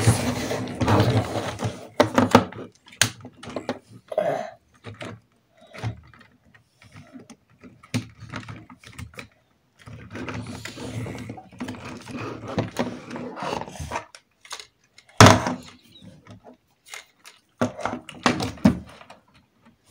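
Plastic toy tractor and baler handled and pushed on a tabletop: scattered clicks and knocks of plastic parts, with one sharp knock about fifteen seconds in.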